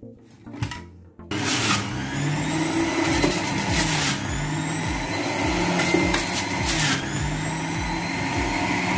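Vertical electric juicer running, its motor and auger crushing carrots, apple and orange into juice. The machine sound starts abruptly about a second in and runs steadily, with a few brief louder moments.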